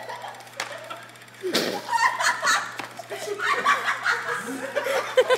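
Several people laughing and talking, the laughter picking up about a second and a half in.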